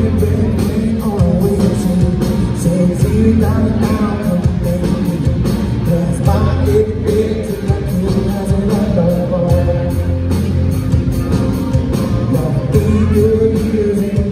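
Live country-rock band playing: electric guitars, bass and drums on a steady beat, with a man singing the lead vocal into the microphone.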